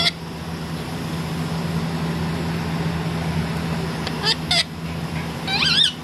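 Indian ringneck parakeet calling: a brief squawk at the start, two short harsh squawks a little after four seconds in, and a quick warbling chatter near the end. A steady low hum runs underneath.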